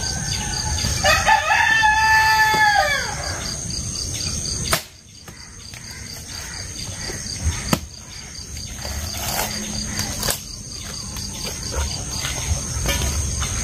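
A rooster crowing once, a drawn-out call about a second in that rises, holds and falls away, over a steady high insect trilling. A few short, sharp knocks follow later.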